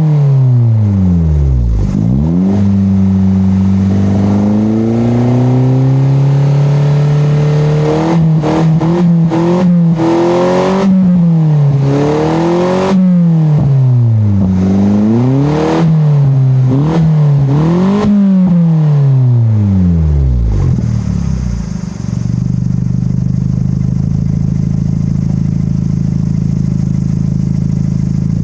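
Exhaust of a 1995 Daihatsu Mira TR-XX Avanzato R through a stainless Style-Bay Final F2 aftermarket muffler, its 660 cc turbocharged four-cylinder engine being revved: held at raised revs for a few seconds, then a run of quick throttle blips, each rising and falling, then settling to a steady idle about 21 seconds in.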